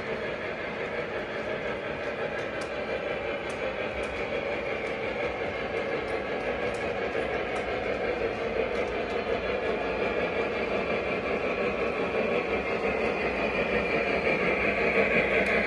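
Model Union Pacific Big Boy steam locomotive pulling a train of double-stack container cars around curved track: a steady running rumble of the train that grows louder as it approaches, with a few faint clicks in the first half.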